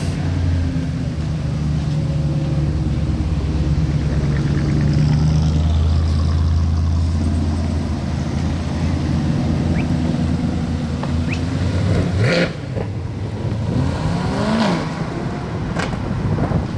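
A 2020 Corvette's V8 engine runs steadily, then revs up and back down a couple of times in the last few seconds.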